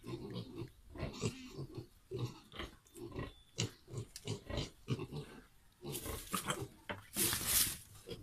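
Pigs grunting in short, irregular snorts, with a brief louder harsh, hissing burst near the end.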